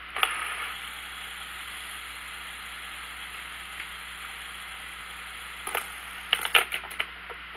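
Fidget spinner spinning flat on a hard floor, giving a steady whirring hiss from its bearing, after a sharp click as it is set down at the start. A cluster of sharp clicks and taps comes about two-thirds of the way through.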